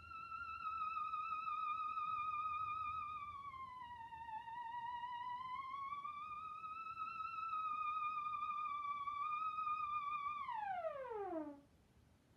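Moog Theremini theremin playing one sustained high tone with a wavering vibrato. The pitch sags slowly and rises back. Near the end it glides steeply down and fades out.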